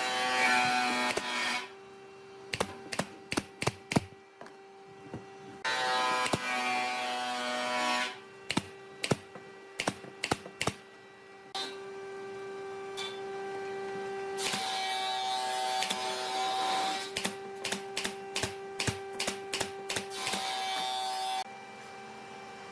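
Workshop tool sounds: a steady motor hum, swelling into four louder spells of a second or more of power-tool noise, with runs of sharp clicks or taps, a few a second, in between.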